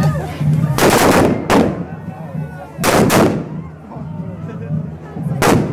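Firework bangers exploding in the street, a sharp, loud bang each time: a double blast about a second in, another just after, one around three seconds and one near the end. Crowd voices run underneath.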